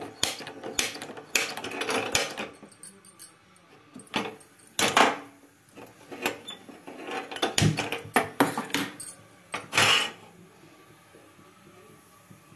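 Stainless steel cookware being handled: an irregular run of sharp metal clinks and knocks that stops about ten seconds in.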